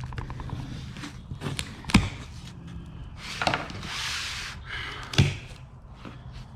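Objects being handled and set down while unpacking a box: a few sharp knocks, the loudest about two seconds in and again about five seconds in, with a scraping rub in between, over a low steady hum.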